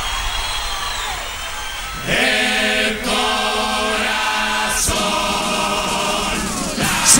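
Murga chorus singing long held chords in many voices, breaking off briefly twice, after about two seconds of audience noise. A sharp crash comes near the end.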